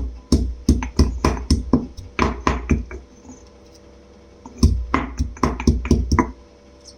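Pestle pounding ginger with whole spices (cinnamon, cardamom, cloves) in a mortar: quick strikes, about four a second, in two runs with a pause of about a second and a half between them.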